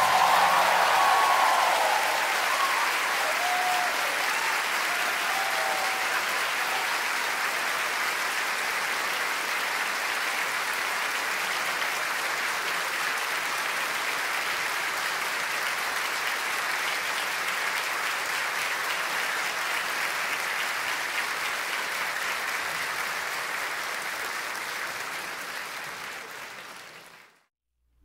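Audience applauding in a long, steady round that fades out shortly before the end.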